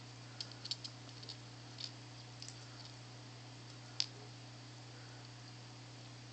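Small dog crunching dry kibble off a tile floor: a scatter of short crisp clicks and crunches in the first couple of seconds, then one sharper click about four seconds in. A steady low hum runs underneath.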